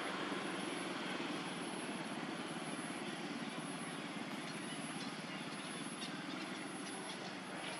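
A steady mechanical drone, like a running engine, slowly fading, with a few faint high clicks in the last few seconds.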